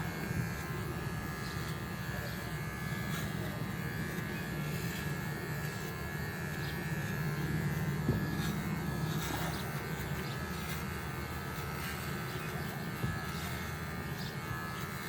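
Electric hair clippers running steadily with a constant buzz while shaving a puppy's thick coat.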